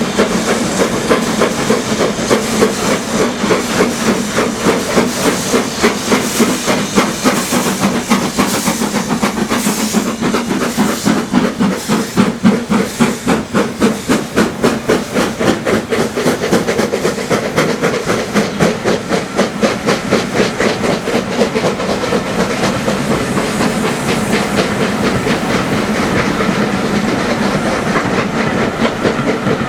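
Two steam locomotives, BR Standard Class 4 4-6-0 No. 75078 and LMS Black Five 4-6-0 No. 45407, working hard as they climb, their chimney exhaust beating in a rapid, even rhythm over a steady hiss of steam.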